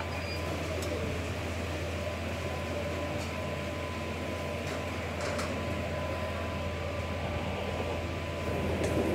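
Steady low mechanical hum of kitchen machinery with a thin steady whine above it, and a few faint clicks as a spatula works around the edge of a clay baking dish.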